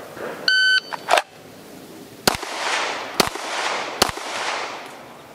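A shot timer beeps once, a click follows, and then a handgun fires three shots about a second apart, each followed by an echo. The last shot comes about three and a half seconds after the beep.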